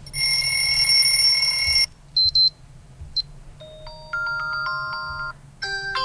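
Xiaomi Redmi Note 11 preset alarm tones played one after another: a buzzy electronic tone for about two seconds, a few short high beeps, then a melody of held electronic notes. Another tone starts near the end.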